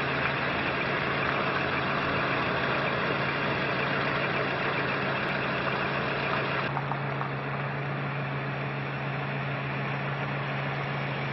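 Steady engine noise, as of engines idling, with a constant low hum underneath; about two-thirds of the way in it turns a little duller.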